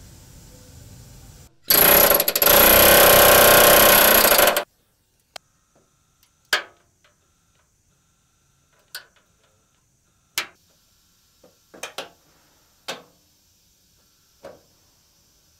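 Metal tools at work: a loud hiss lasting about three seconds, then about ten sharp metallic clicks and clanks at uneven intervals, each ringing briefly.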